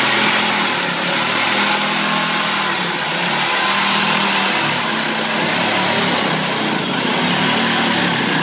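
Handheld electric power tool running continuously under load, its high motor whine dipping in pitch and recovering every second or two as it bites into the wall framing.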